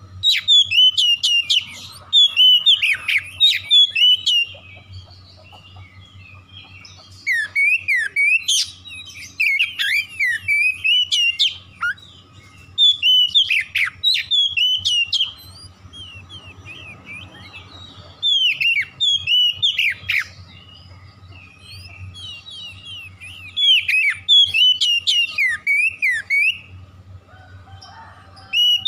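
Oriental magpie-robin (kacer) singing: rapid, varied whistled phrases mixed with sharp chirps. It comes in about five bouts of a few seconds each, with short pauses between them.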